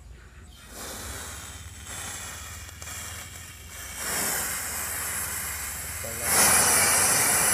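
Gas hissing out of a small canister's nozzle as it is pressed into the neck of a plastic water bottle to fill it. The hiss starts about a second in, grows louder about four seconds in and louder again near the end.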